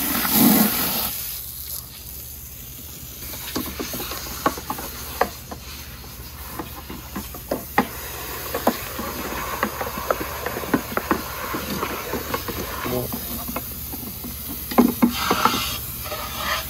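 Water spraying from a hose nozzle into a fish tank, hissing loudly for about a second and then going on more weakly, with scattered sharp clicks and knocks throughout.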